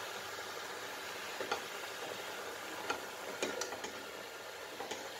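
A cooking spoon stirring a thick beetroot and turnip curry in a metal pot, knocking against the pot a few times with short sharp clicks, three in quick succession midway, over a steady hiss of the curry cooking.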